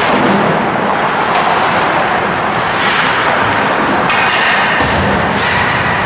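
Ice hockey game noise in a rink: a steady din with a few sharp knocks of sticks and puck against the boards, clustered after the middle.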